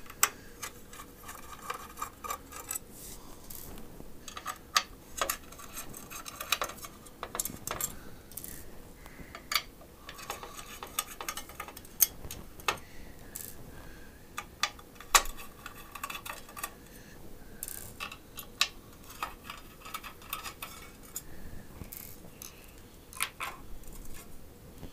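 Hands handling the parts of an astronomy filter wheel and small hardware on a wooden table: irregular clicks, taps and clinks of hard parts being picked up and set down, with intermittent rustling.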